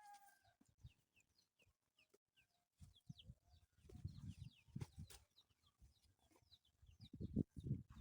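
Faint farmyard birds chirping quickly throughout, with some clucking, and several low dull bumps around the middle and near the end, the loudest about seven seconds in.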